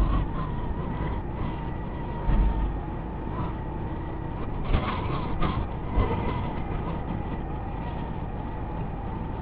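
Motorcycle riding at a steady speed: engine running with a steady thin whine, and wind and road noise rushing over the microphone. A few brief knocks come about halfway through.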